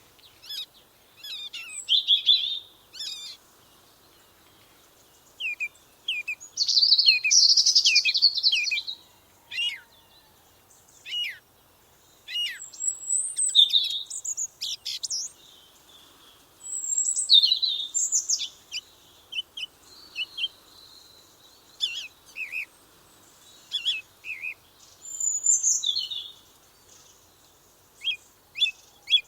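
Songbirds chirping and singing in short, high phrases with brief pauses between them, a longer run of rapid notes about seven seconds in.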